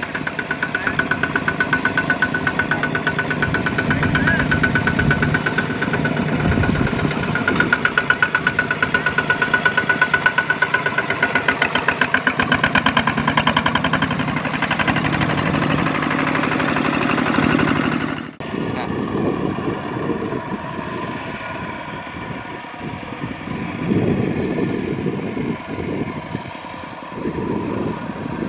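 Two-wheel walking tractor's single-cylinder diesel engine running steadily under load with a fast, even pulsing beat as it pulls a loaded trailer through mud and water. About two-thirds of the way through the sound breaks off sharply and another walking tractor's engine carries on, quieter and less even.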